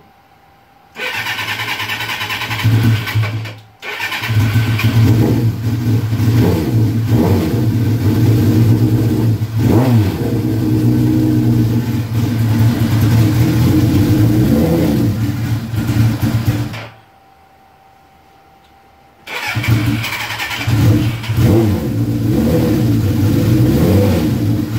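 Suzuki GS1100E's air-cooled inline-four engine starting on choke and a shot of starter fluid, its first start in 24 years. It fires about a second in and cuts out after a couple of seconds, fires again and runs with a few throttle blips for about thirteen seconds, cuts out, and starts again near the end.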